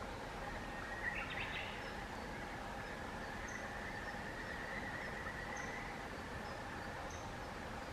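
Steady outdoor background noise with faint, scattered high bird chirps, and one brief sharper bird call about a second in.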